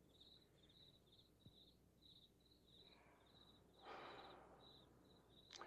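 Faint crickets chirping at night: a steady run of short, high chirps, about three a second. A soft breathy noise rises briefly about four seconds in.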